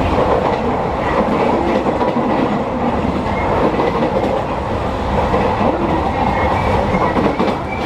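Aoimori Railway electric train running along the line, heard from inside the passenger car: a steady, unbroken noise of wheels on rails and the running train.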